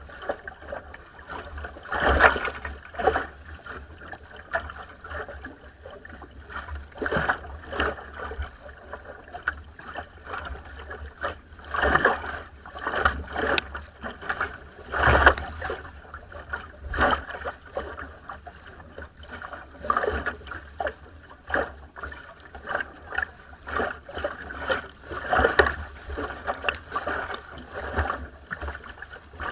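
Water splashing and rushing along the hull of a small wooden sailing dinghy as its bow cuts through a chop. It comes in irregular surges every second or two over a steady low rumble.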